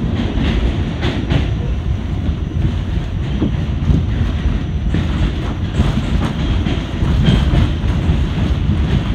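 A New York City Subway Q train running at speed, heard from inside the car: a steady low rumble of wheels on rails with irregular clacks from the track.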